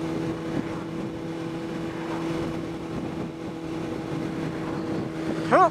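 Honda CBR600RR's inline-four engine running at steady revs while cruising, heard from the rider's seat over a haze of wind rush.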